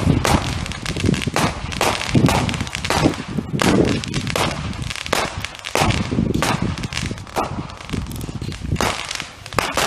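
Fireworks going off: a rapid, unbroken run of sharp bangs and crackles, several every second, with heavier booms among them.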